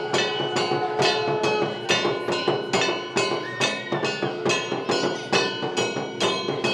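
Hand-held bell-metal plate gong (kansor) struck with a stick in a steady beat, about two to three ringing strikes a second, with a conch shell blown underneath as a steady note.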